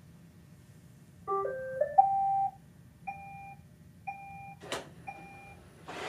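iRobot Roomba 675 robot vacuum playing its electronic start-up chime, a short stepped run of tones, as it begins a cleaning job. Three short beeps about a second apart follow, with a sharp click near the end.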